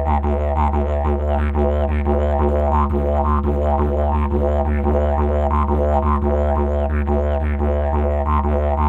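Background music: a didgeridoo playing one steady low drone, its tone reshaped in a quick, repeating rhythm.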